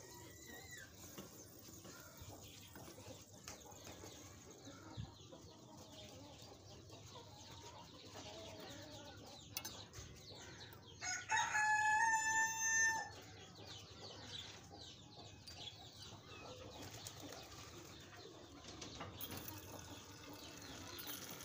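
A rooster crows once, about halfway through: a single call of roughly two seconds that rises, then holds its pitch. A few faint clucks and a low steady hiss sit around it.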